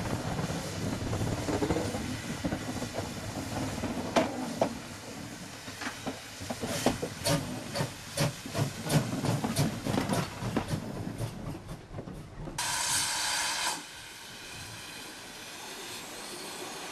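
GWR 1366-class pannier tank locomotive 1369 running slowly with steam hissing, then a string of irregular sharp clanks and knocks. About three-quarters of the way through comes a short whistle blast lasting just over a second.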